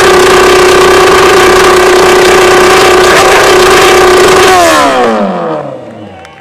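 Yamaha FZR1000 inline-four engine with a modified open exhaust, held at a steady high rev and very loud. About four and a half seconds in the throttle is released and the revs fall away smoothly over a second and a half.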